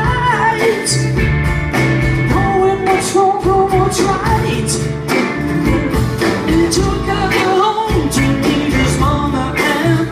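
A rock band playing with a sung lead vocal over steady drums and bass.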